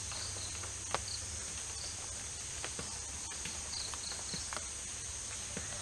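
Steady high-pitched drone of insects in the forest, with scattered faint clicks and snaps and one sharper click about a second in.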